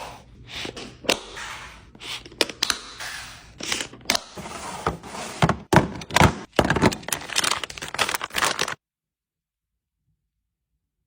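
Snack packages being set and dropped into a fridge drawer: a quick run of knocks and thunks over rustling wrappers. The sound cuts off abruptly about nine seconds in.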